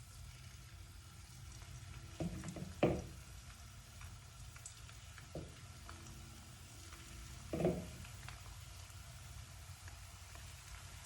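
Cornstarch-coated chicken pieces sizzling as they fry in hot oil in a pan, with a few sharp knocks against the pan, the loudest about three and eight seconds in.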